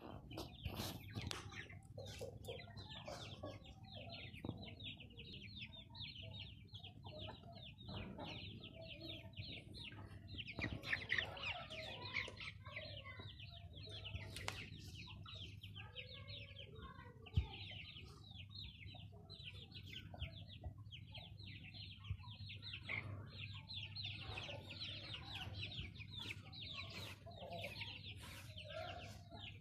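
A flock of chicks peeping almost without pause, in quick high calls. Light Sussex chickens cluck now and then among them.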